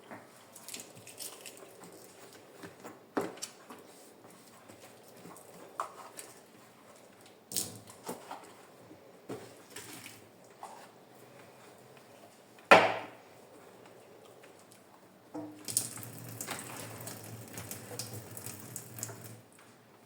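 Intermittent clatter and knocks of household objects being handled and set down, with one sharp knock about two-thirds of the way through and a busier stretch of rubbing and clattering near the end.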